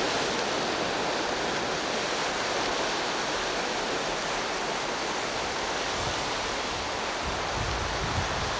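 Steady wash of ocean surf on a rocky shore, with a few low rumbles about six to eight seconds in.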